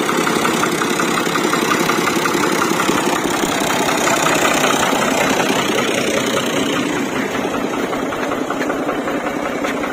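New Holland Ghazi tractor's diesel engine running steadily at low revs as the tractor creeps up wooden planks onto a wooden river boat.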